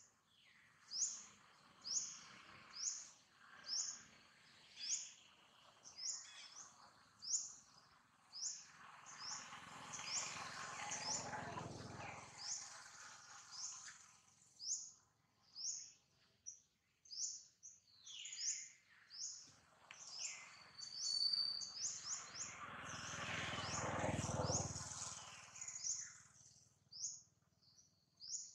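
A bird repeating a short, high chirp over and over, roughly three calls every two seconds. Twice a broad rushing noise swells up over several seconds and fades away.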